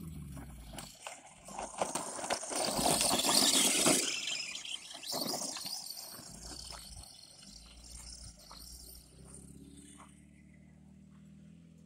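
Electric Arrma Senton 4x4 RC short-course truck driving hard over loose dirt and gravel, its tyres scrabbling and flinging stones with lots of small clattering knocks. It is loudest a few seconds in, then fades as the truck runs off. A low steady hum takes over near the end.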